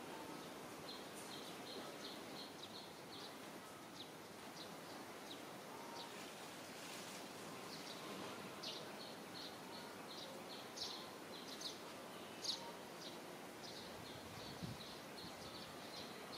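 Quiet outdoor ambience: a steady low hiss with runs of short, high chirps, like small birds calling, a few of them louder near the middle.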